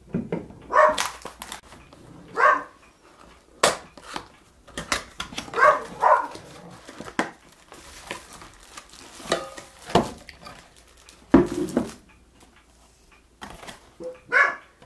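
A dog barking in short yips, about five times, over the rustle and knocks of a cardboard box and plastic packaging being handled.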